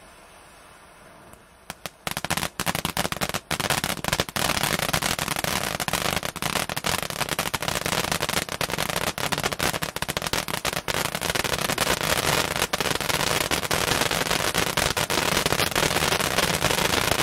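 Ground firework fountain hissing faintly, then about two seconds in the next fountain of the linked set takes over with a crackling effect: a loud, dense, continuous crackle of many small pops that carries on.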